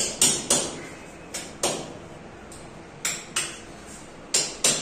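Hammer blows, about nine sharp knocks in irregular pairs, each ringing briefly, as the aluminium cabinet frame is fitted.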